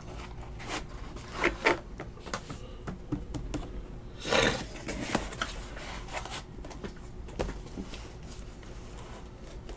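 Scattered light clicks and small scrapes of handling at a table, with a short rustle about four seconds in.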